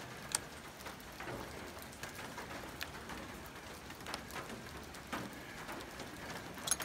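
A Martini falling-block rifle being handled while it is unloaded: one sharp click about a third of a second in, then a few fainter clicks, over a steady background hiss.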